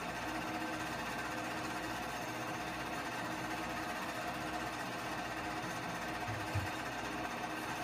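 Keystone K-502 8mm movie projector running, its motor and film-advance mechanism making a steady mechanical whirr, with a brief low thump about six and a half seconds in.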